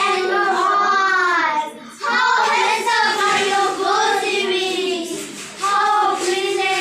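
Children's voices reciting a poem in a sing-song chant, with held, gliding notes and two short breaths, about two seconds and about five and a half seconds in.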